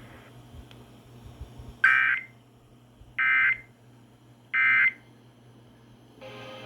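NOAA Weather Radio's SAME end-of-message data code: three short bursts of warbling digital tones, about a second and a half apart, closing the severe thunderstorm warning broadcast. A low steady hum runs underneath, and other audio with steady tones comes in near the end.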